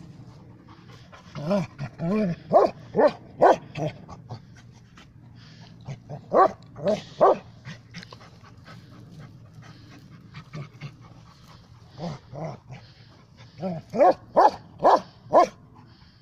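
Young Rottweiler barking in three runs of quick barks, about two a second, with quiet pauses between the runs and two softer barks shortly before the last run.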